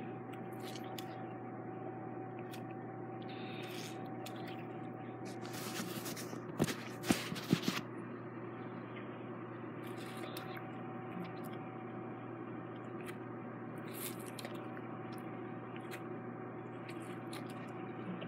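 Someone biting, sucking and chewing on a lemon: scattered wet clicks and smacks, with a louder cluster about six to eight seconds in, over a steady background hum with a faint held tone.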